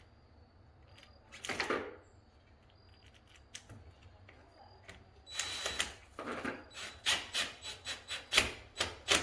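Hand work on a window sash's spiral balance and its parts: a brief scrape about one and a half seconds in, then from about five seconds in a run of quick scraping, clicking strokes, about three a second, getting louder.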